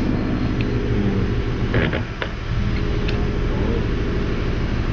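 A steady low mechanical rumble, with a few sharp clicks or creaks about two seconds in.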